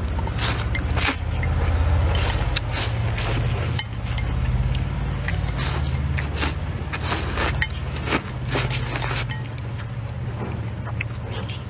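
Close-up eating sounds: sweet potato vermicelli noodles slurped and chewed, many short wet smacks and clicks, with chopsticks tapping the bowl. A steady low rumble runs underneath.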